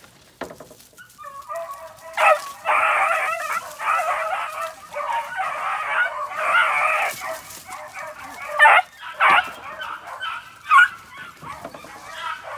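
Several puppies yelping and whining at once, a dense high-pitched chorus for about five seconds, then scattered sharp yelps.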